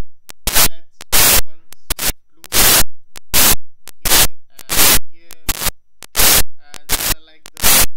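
Loud, regular bursts of static noise, about one and a half a second, each cutting off sharply, with thin clicks between them.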